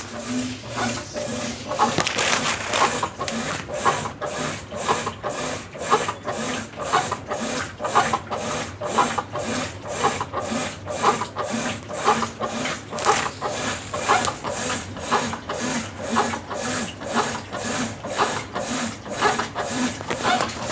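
Consul Facilite CWC10 top-loading washing machine agitating a load of clothes in water during the rinse, a rhythmic swishing about twice a second.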